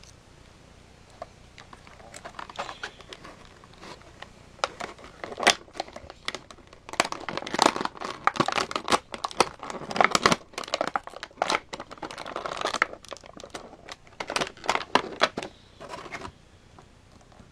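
Stiff plastic packaging crinkling and crackling as an action figure is pulled free of its plastic tray, in irregular sharp bursts that are densest in the middle and stop about a second before the end.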